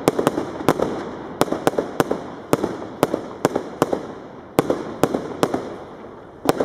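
Aerial fireworks bursting in a quick, irregular string of sharp bangs, about three a second, pausing for about a second near the end before two more.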